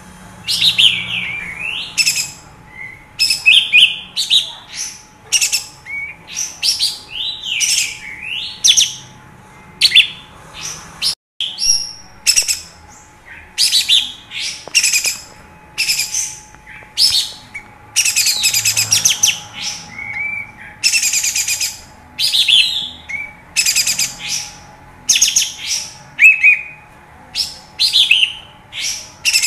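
Olive-winged bulbul (kapas tembak) singing energetically in rapid bursts of chattering, sliding whistled notes, with a few longer harsh, buzzy phrases partway through.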